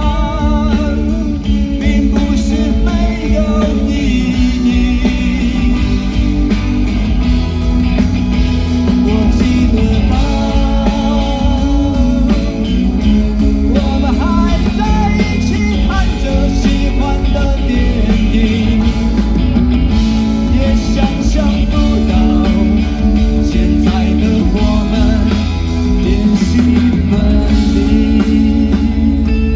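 Live rock band with a male lead singer over guitars.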